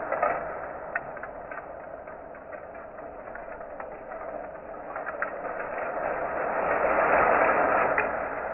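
Bamboo chopsticks rattling and clicking against one another in a dense clatter, with sharper single clicks scattered through it. It dies down over the first few seconds, then swells to its loudest about seven seconds in before easing off.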